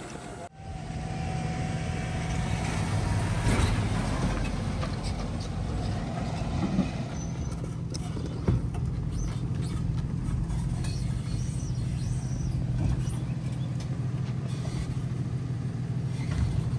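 Delivery box truck's engine idling with a steady hum. A few knocks and rattles come through as a wooden crate is moved on a hand pallet jack.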